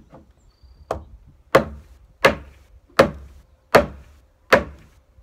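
Heavy blows on a wooden timber-frame girt, driving its tenon home into the post's mortise. Six hard strikes come about one every three-quarters of a second, the first one lighter.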